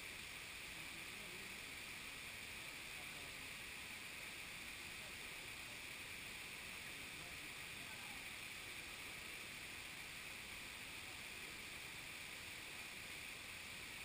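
Steady rush of a forest stream running over rocks, an even unbroken hiss of water.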